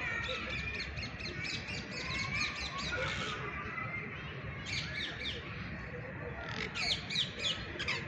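Parakeets calling: a fast run of short, shrill squawks, about five a second, for the first three seconds or so. Two shorter bursts of calls follow, around halfway and near the end.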